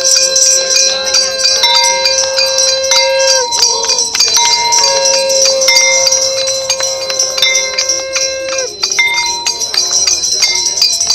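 Hindu aarti: a devotional tune in long held notes, each lasting a few seconds, over continuous ringing and jingling of hand bells.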